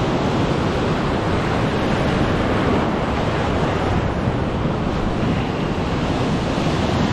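Ocean surf breaking and washing over the rocks close by, a steady loud rushing wash, with wind buffeting the microphone.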